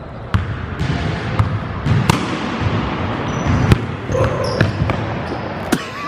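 A basketball dribbled on a hardwood gym floor: several sharp bounces at uneven intervals.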